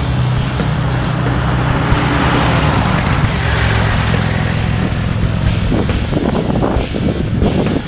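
1955 Chevrolet 3100 pickup's rebuilt 235 cubic-inch inline-six running as the truck drives past close by and pulls away, the engine and tyre noise swelling around the middle.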